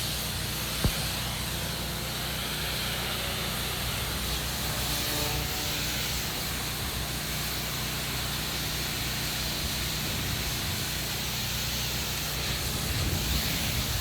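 Pressure washer running steadily: a motor hum under a constant hiss of water spray, with one sharp click about a second in.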